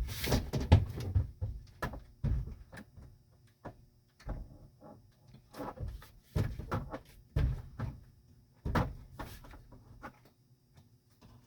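Irregular knocks and clatters of a Dometic refrigerator door being worked against its hinge and brace, the door not seating on the hinge because a bushing was left out.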